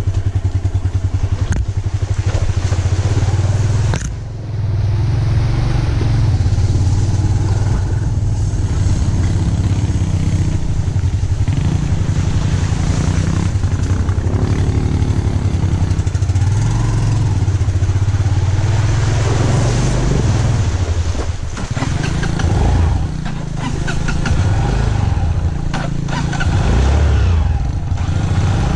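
Motorcycle engine running while the bike rides through shallow flood water, the engine note rising and falling with the throttle, with water sloshing and splashing around the wheels.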